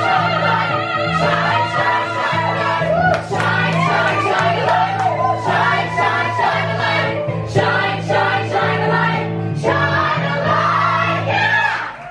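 A group of singers performing a musical theatre song live, a woman singing lead into a microphone with the others joining in, over steady amplified accompaniment.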